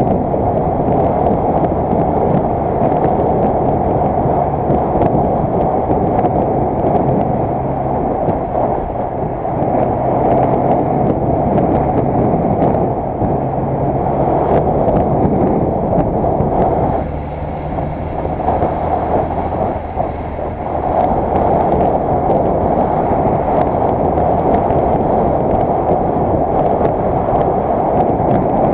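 Motorcycle riding at road speed: wind rushing over the microphone, with a low engine drone beneath it that shifts in pitch now and then. The wind noise eases briefly about two-thirds of the way through.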